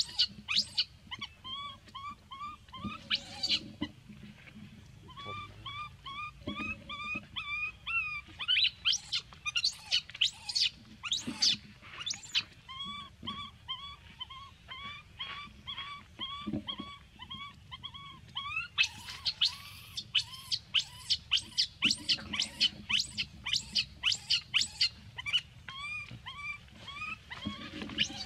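Baby macaque crying: long runs of short, repeated high squeals and screams, about two or three a second, broken by short pauses.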